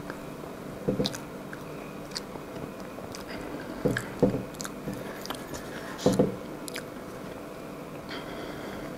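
Eating sounds: a plastic spoon digging and scraping into a soft cream-cheese cake in a paper box, with chewing between scoops. Scattered small clicks, with a few louder soft knocks about a second in, around four seconds and around six seconds.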